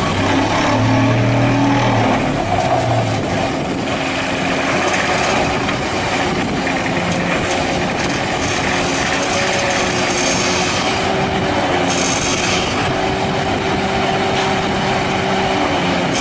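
Excavator-mounted hydraulic vibro pile hammer vibrating a steel H-beam pile: a loud, steady, fast rattling buzz, with the excavator's engine running under it.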